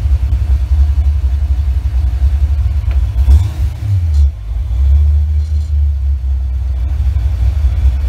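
1988 Mustang GT's 5.0 L small-block Ford V8, on Holley Terminator X fuel injection, idling with a steady low rumble at about 900 rpm. The level dips briefly about four seconds in.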